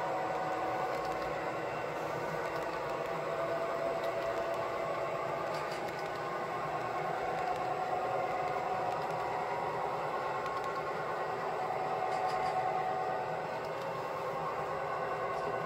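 Model train's double-stack container well cars rolling past on the track: a steady rattle of small metal wheels running over the rail joints.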